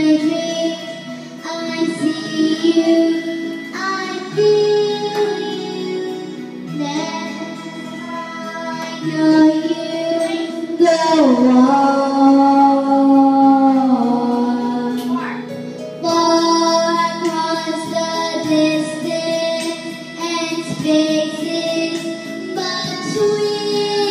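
Young girl singing into a microphone over backing music, holding long notes, with a sliding fall in pitch about eleven seconds in.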